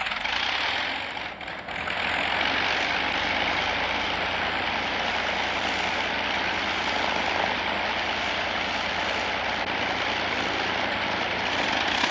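Avro Lancaster bomber's Rolls-Royce Merlin V12 piston engines running steadily with the propellers turning, dipping briefly about a second and a half in.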